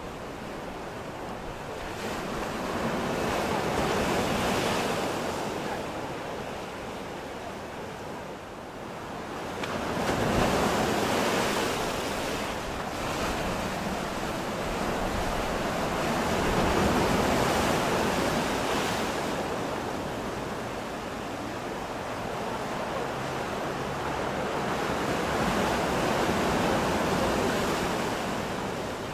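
Sea waves breaking and washing up the shore in four slow surges, each rising and falling over several seconds.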